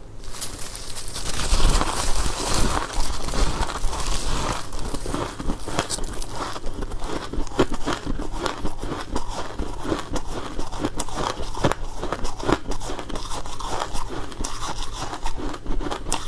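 Close-miked bites and chewing of soft, powdery freezer frost: a dense run of small crisp crunches and crackles as the packed ice is bitten and chewed.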